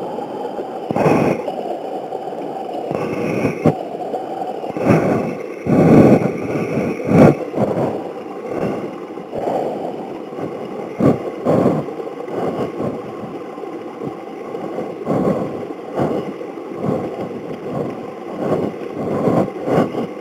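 Model 625 HDP hand dredge being pumped by hand in a stream: gurgling, sloshing water and suction as it draws water and gravel up its hose, with irregular louder surges and sharp clicks about every second.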